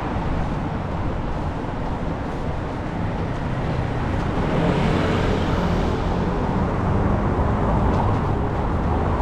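Steady, loud road and traffic noise with a deep rumble underneath.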